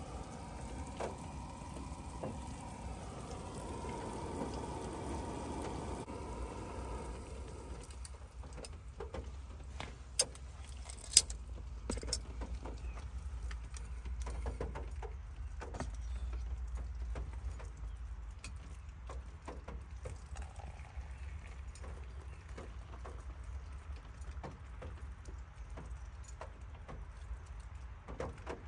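Small gas-canister backpacking stove burning under a steaming metal pot of water, then cutting off about eight seconds in. After that the metal pot clinks and knocks as it is handled, with a sharp clank about ten seconds in and a louder one a second later, over a low steady rumble.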